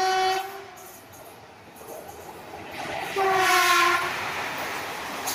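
WAP-4 electric locomotive's air horn sounding two blasts, one at the start and another about three seconds in, as the express train runs through the station at speed. Between and after the blasts the rush and rumble of the train grows as the locomotive and coaches pass.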